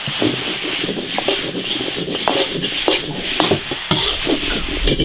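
A spatula stirring and scraping in an iron wok, with many short, uneven scrapes over a steady sizzle of pork cracklings and eggplant strips frying in lard.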